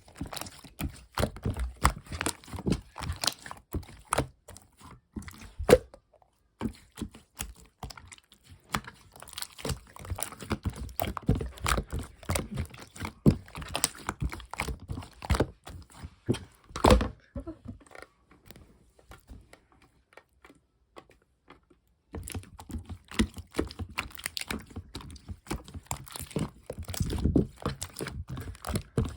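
Clear slime being squished and stretched by hand: a dense run of small sticky clicks and pops. It stops for a few seconds about two-thirds of the way through, then starts again.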